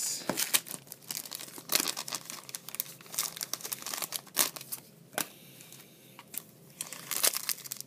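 Foil wrapper of a 2011 Topps Chrome baseball card pack crinkling as it is handled and torn open by hand, in a run of irregular crackles.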